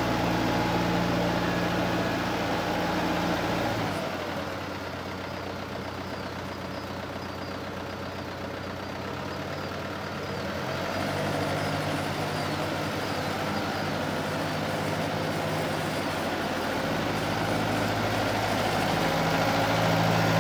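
Branson 4720 compact tractor's diesel engine running steadily as the tractor drives across the yard. It drops in level about four seconds in, grows louder again from about eleven seconds, and is loudest near the end.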